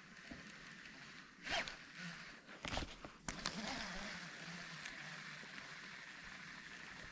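A fishing reel being cranked to bring in a lure, a steady whirring from about three seconds in, after a few short handling sounds.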